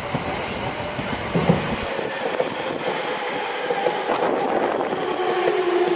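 Train running along the platform road, its wheels rumbling and clattering on the rails with thin steady squealing tones; the squeal grows stronger near the end.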